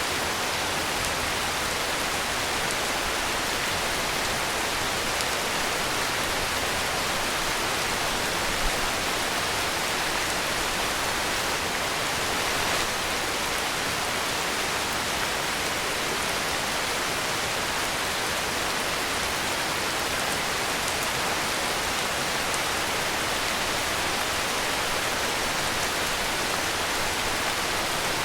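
Heavy rain falling in a steady, even hiss, with no thunder or other sudden sounds.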